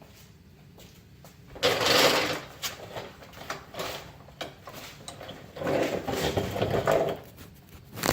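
2002 Chevy Trailblazer grinding as it is put into gear: two rough grinding bursts about a second long, the first about one and a half seconds in and the second about two-thirds of the way through, with light clicks between them.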